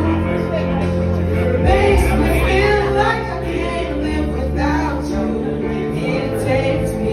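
Two women singing karaoke into microphones over a backing track.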